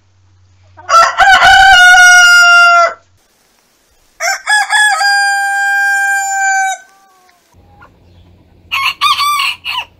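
Two rooster crows, one about a second in and one about four seconds in, each opening with a few choppy notes and ending in a long held note. Near the end comes a short burst of clucking calls from a chicken.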